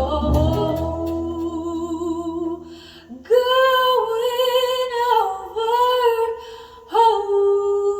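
A slow gospel song playing through restored vintage Pioneer CS-410 speakers. A singer holds long notes with vibrato, and the bass and guitar backing thins out after the first second.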